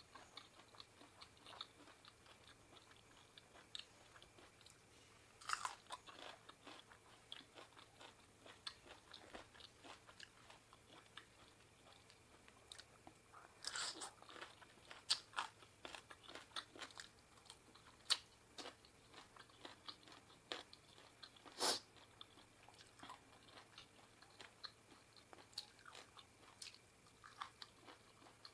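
A person eating close to the microphone: faint wet chewing with many short crunches and clicks, a few louder bites scattered through.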